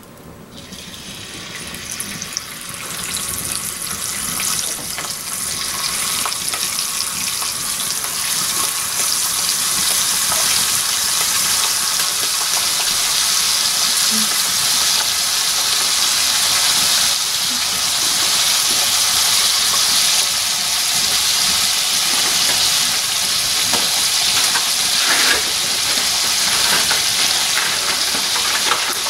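Pieces of venison heart sizzling in hot pork fat in a cast-iron skillet, the frying hiss building over the first several seconds as the meat goes in, then holding steady.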